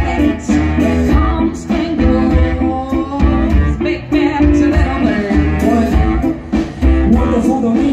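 Live brass band playing a funk and hip hop groove: saxophones, trumpet, trombone and sousaphone over a drum kit keeping a steady beat, with a singer's voice on top.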